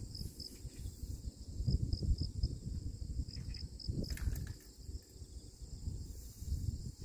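Insects chirping in short, high-pitched pulses, several a second, coming and going over a low irregular rumble, with a brief sharp knock about four seconds in.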